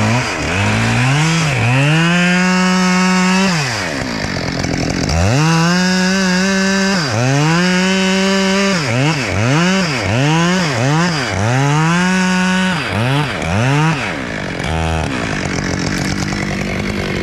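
Gas chainsaw revving to full throttle several times for one to two seconds each, with quick short throttle blips in between, then dropping back toward idle near the end. The saw is making the back cut of a tree felling.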